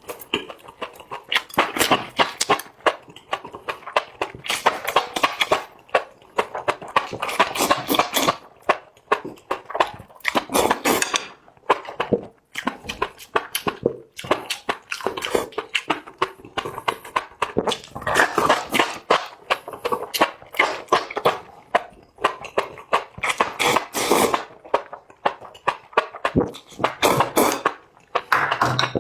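Close-miked eating sounds from a meal of super spicy enoki mushrooms and lamb trotters: wet chewing and lip-smacking in quick runs of clicks, broken by short pauses.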